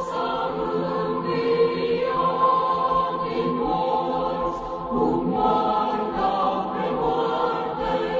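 A choir singing a slow hymn in long, held chords.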